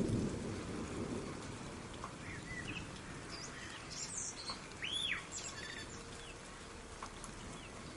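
Soft rain with scattered drop ticks. A low rumble at the start fades out within the first second or so, and a few birds chirp in the middle, one giving a short arching call.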